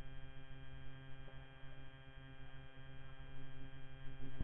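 Steady electrical mains hum, a buzz of many even tones, with no clear other sound above it.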